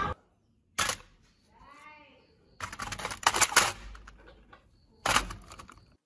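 Sharp clicks and knocks of small metal fan-motor parts being handled on a wooden workbench: one about a second in, a quick cluster around three seconds, and one more near the end, with a faint tone that rises and falls in between.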